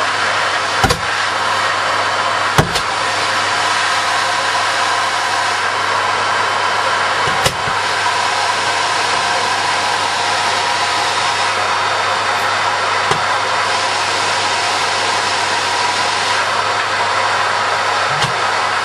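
Homemade jet engine built from a car turbocharger, running steadily with a loud rushing hiss. A few short sharp knocks stand out over it.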